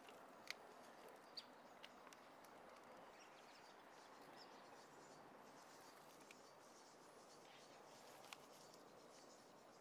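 Near silence: faint background hiss with a few small clicks.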